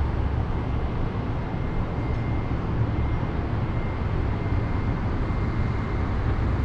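Steady outdoor rumble of wind buffeting the microphone over distant city traffic far below, with a faint steady high tone running under it.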